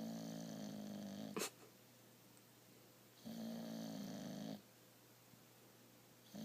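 Snoring, one long pitched snore roughly every three seconds: one at the start that ends in a sharp click, one about three seconds in, and another starting near the end.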